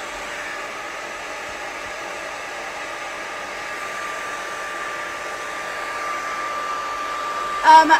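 Hand-held hair dryer with a diffuser attachment running steadily. A steady whine comes in about halfway through and grows slightly louder. A short burst of voice cuts in near the end.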